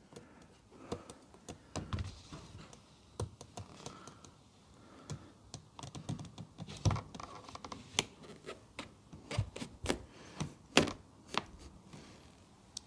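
Scattered light clicks, taps and knocks at irregular intervals as a car's quarter glass is slid back into its seals and its bracket is bolted up.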